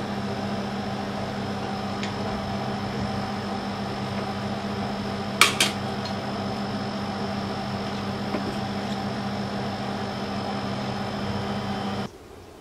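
Small electric melting furnace running with a steady hum while its crucible is red hot. Two sharp metallic clinks about five and a half seconds in as tongs touch the crucible. The hum stops abruptly near the end.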